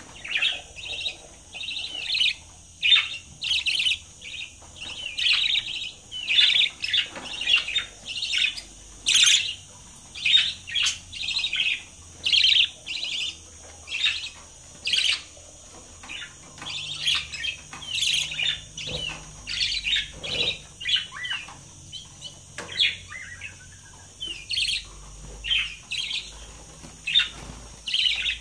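Budgerigars chirping: a steady run of short, high chirps, one or two each second.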